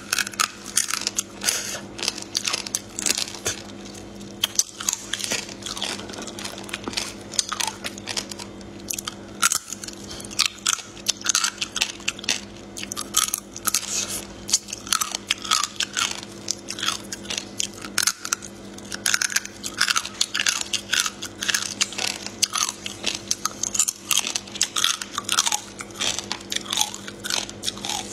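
Biting and chewing raw soy-marinated crab legs: crisp crunching and cracking of the shells, many sharp cracks in quick succession.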